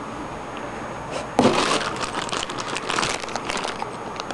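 Crinkling and rustling of papers and a plastic bag being handled and rummaged through, with a louder stretch of crinkling about a second and a half in.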